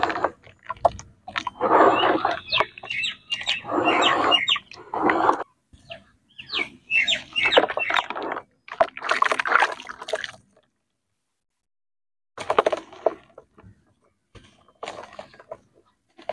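Hands sloshing and squeezing red dirt in muddy water in a plastic tub: wet swishing and squelching in irregular bursts. The sound stops for about two seconds past the middle, then comes back as a few quieter squelches.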